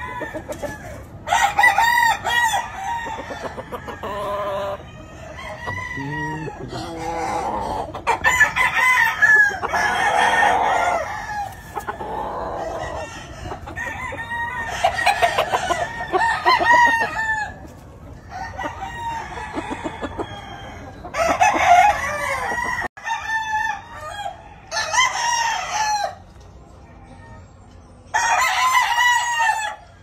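Game roosters crowing again and again, about ten crows in all, some from different birds overlapping one another.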